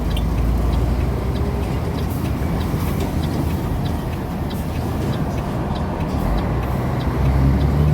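Semi-truck's diesel engine running with steady road noise, heard from inside the cab; the engine grows louder near the end.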